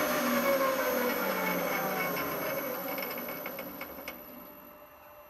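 Titan 32Bb lathe spindle and drive coasting to a stop after a threading pass. Its whine falls steadily in pitch and fades over about four seconds, with a few ticks just before it goes quiet.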